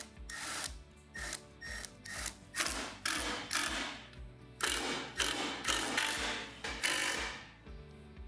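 Cordless drill-driver run in about ten short bursts with brief pauses, driving screws as the new scooter controller is fastened in place. Background music with a steady beat plays underneath.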